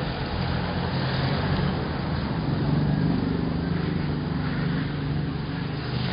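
Miniature model cargo train running with a steady low motor hum and rolling noise.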